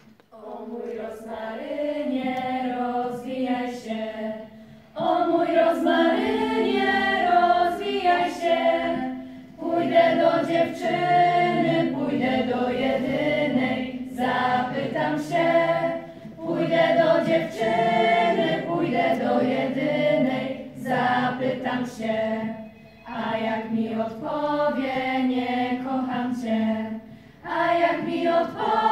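Mixed youth choir singing a cappella in several parts. It comes in about a second in and sings in phrases of a few seconds each, with brief breaths between them.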